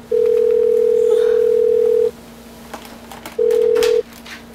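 Hotel room telephone ringing for an incoming wake-up call: a plain, steady electronic tone for about two seconds, then after a pause a second ring that is cut short as the phone is picked up. Faint rustling of bedding between the rings.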